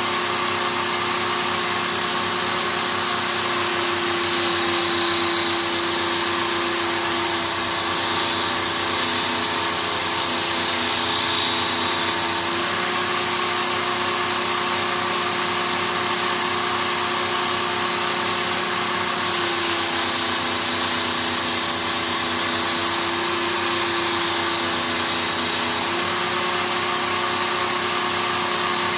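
Work Sharp Ken Onion belt sharpener with its blade grinding attachment running steadily, its abrasive belt grinding a steel axe edge. The hiss of the belt on the steel grows stronger in two long passes, each several seconds long.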